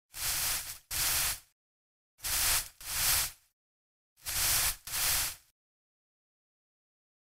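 Sound effect of a soft brush sweeping over a toenail: six short hissing swishes in three quick pairs, about two seconds between pairs.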